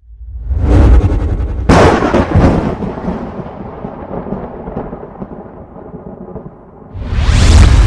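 Cinematic intro sound effects: a swelling whoosh, then a heavy boom-like impact about two seconds in that rings out and fades slowly over several seconds, and another loud whoosh near the end.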